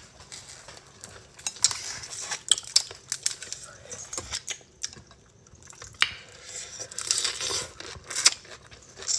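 Close-up eating sounds: mouth sounds of sucking and chewing on boiled shrimp, with many small sharp clicks of chopsticks against a ceramic bowl, and a noodle slurp near the end.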